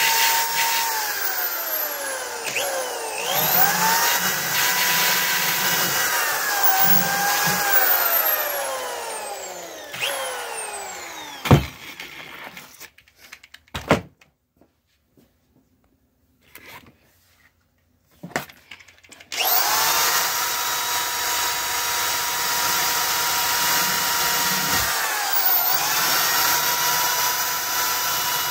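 Electric drill spinning a wire cup brush against a rusty steel axe head, stripping the rust. The motor's whine slides up and down as the trigger and load change; it stops about twelve seconds in, and after several seconds of quiet it starts again and runs steadily.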